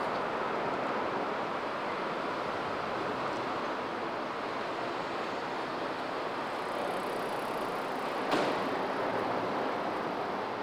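Steady outdoor background noise, an even hiss-like wash with no distinct source standing out, and a single short knock about eight seconds in.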